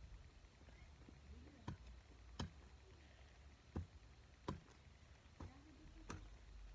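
Long-handled garden tool striking into soil about six times, each a short dull knock, as the ground is broken up by hand.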